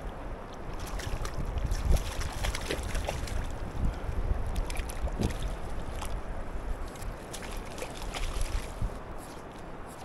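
River water lapping and splashing close to the microphone, with wind gusting on it, loudest about two seconds in.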